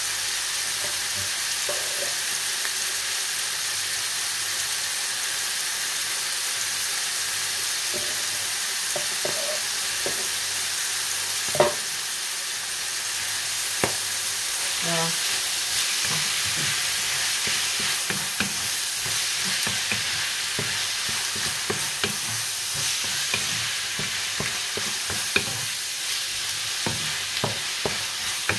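Beef and mushrooms with garlic sizzling in a frying pan. A utensil stirs and clicks against the pan, more often in the second half, with one sharp knock about halfway through.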